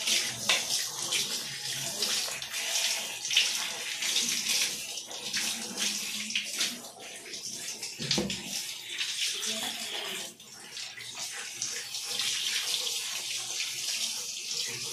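Water spraying from a hand-held shower hose onto a wet golden retriever's coat during a bath, a steady uneven hiss that drops briefly about ten seconds in.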